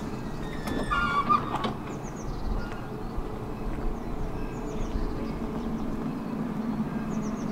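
Tvärbanan light-rail tram running on its track, a steady low rumble. About a second in come a few sharp knocks and a brief wavering squeal.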